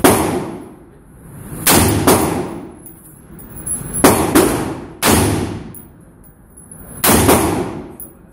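Ferfrans SOAR rifle firing a string of shots, single and in quick pairs (about eight), each crack followed by a long echo from the indoor range.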